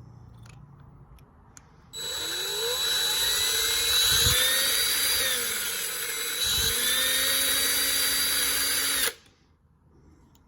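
Small electric drill starts about two seconds in, runs for about seven seconds and cuts off suddenly. Its pitch sags and recovers twice as the bit bites into the metal, drilling out the rivet of a diecast toy car.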